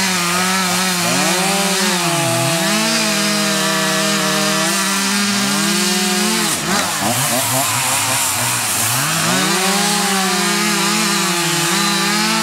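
Two-stroke gas chainsaw running at high revs while cutting a log. Its pitch sags several times as the chain bites into the wood and climbs back as it frees up.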